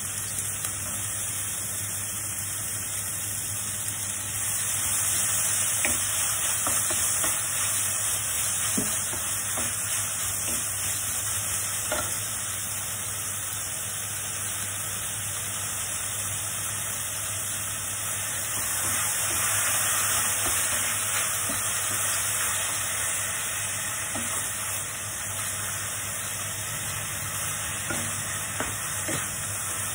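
Sweet potato and onion strips sizzling as they are stir-fried in a stainless steel pan. The sizzle swells twice, and a wooden spatula clicks and scrapes against the pan now and then.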